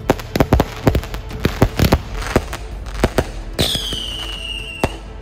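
Ground fireworks going off: a rapid, irregular string of loud cracks and pops, then a firework whistle sliding slightly down in pitch for over a second that ends in a sharp bang near the end.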